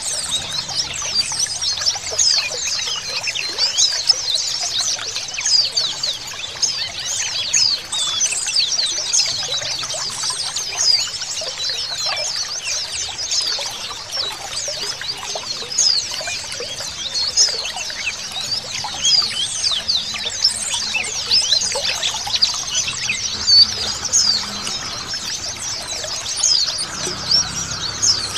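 Many white-eyes (pleci, Zosterops) twittering together in a dense chorus of rapid, high chirps and trills that never lets up.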